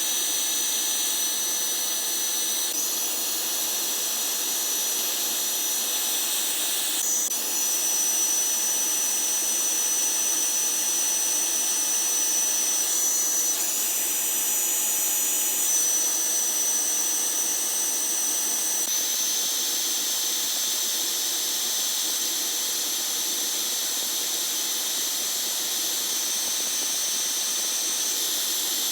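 Steady hissing, whining noise of repair tools sped up four times, with a thin high whistle on top. It changes character abruptly several times.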